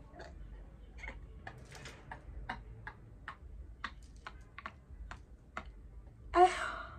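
A woman laughing almost without voice: a string of short, breathy bursts about two a second, then a louder voiced laugh about six seconds in.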